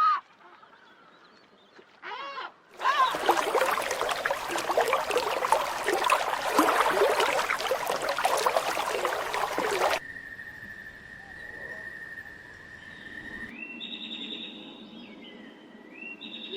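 A string of different bird sounds spliced one after another. Two short calls come near the start. From about three seconds in there is a loud, dense clamour of many overlapping calls, as from a flock, which cuts off abruptly about ten seconds in. A steady high tone follows, and near the end come repeated stepped whistling notes.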